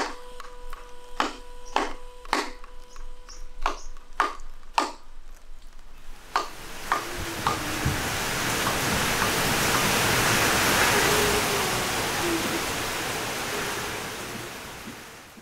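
Sharp, irregular knocks of a carving tool striking wood, about one or two a second, for roughly the first six seconds. After that a steady rushing noise swells up and fades out near the end.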